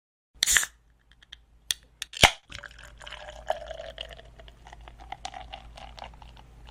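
Liquid pouring into a glass, its tone rising slightly as it fills. It is preceded by a short hiss, a few small clicks and one sharp clink. The sound cuts off abruptly.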